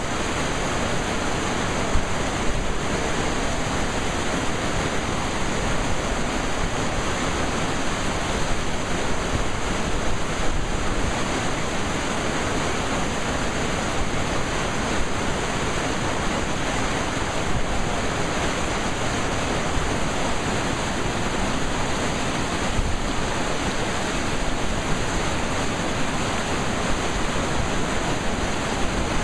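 Swollen, muddy river rapids on the James River: fast water rushing and breaking over rocks and standing waves in a steady, even roar.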